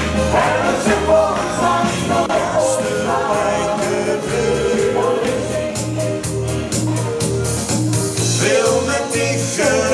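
Dance song with a steady bass beat of about two beats a second, a man and a woman singing in duet over it.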